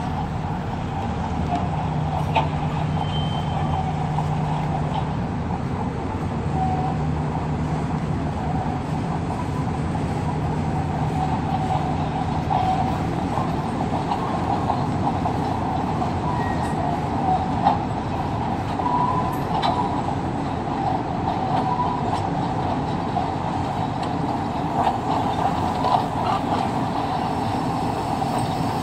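HO-scale model freight train rolling past: a steady rumble of hopper-car wheels running on the track, with a few small clicks along the way.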